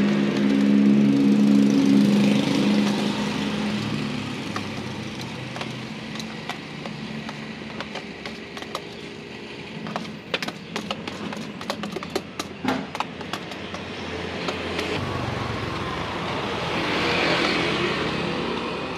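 A passing motor vehicle's engine, loudest at the start and fading over the first few seconds. About ten seconds in comes a quick run of clicks from metal tongs picking jelly cubes out of a plastic box, and another vehicle passes near the end.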